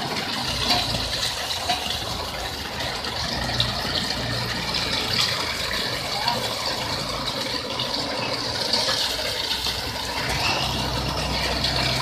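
Self-loading concrete mixer discharging: wet concrete rattles and pours out of the turning drum's chute as a steady rush, over the low hum of the machine's running engine.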